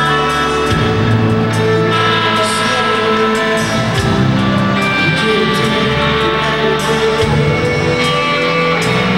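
Live rock band playing: electric guitars, bass guitar and drums, with sustained notes over a bass line that changes notes every few seconds.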